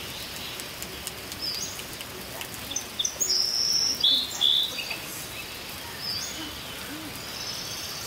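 Tropical jungle night ambience: short, high-pitched buzzy trilled calls of wild animals, loudest from about three to five seconds in, over a steady background hiss.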